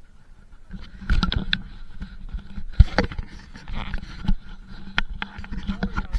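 Muffled, irregular knocks and scrapes heard through a camera's waterproof housing: handling noise and footsteps of someone climbing over rocks, the loudest knock a little under three seconds in.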